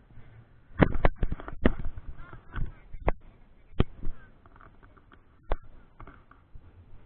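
A quick, irregular run of sharp pops and knocks on the camera's microphone, about eight of them, loudest at about a second in, thinning out after four seconds with a last one at about five and a half seconds.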